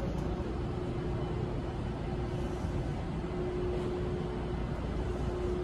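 Tze-Chiang express passenger train pulling out of the station, its coaches rolling past with a steady rumble and a steady hum running underneath.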